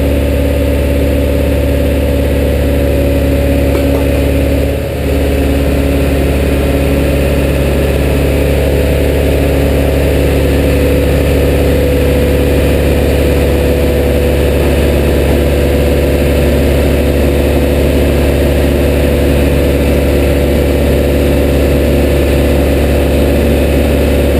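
GMC one-ton 4x4 wrecker truck's engine idling steadily, with a brief dip in level about five seconds in.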